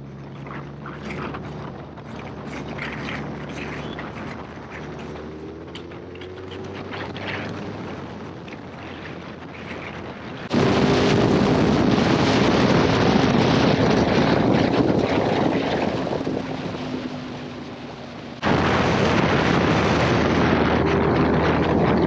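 Sport motorcycles' inline-four engines heard from the rider's seat while riding, with a rush of wind. First a Suzuki Hayabusa runs at moderate revs, its note rising gently. About ten seconds in the sound jumps abruptly to a much louder Yamaha R1 run full of wind noise, which eases off, then cuts suddenly back to a loud Hayabusa run near the end.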